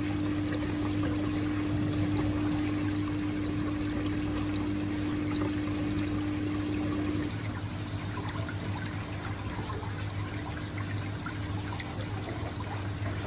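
Water running and trickling into a fish tank from a pipe outlet, over a steady low pump hum. A higher hum weakens about halfway through and the sound gets slightly quieter.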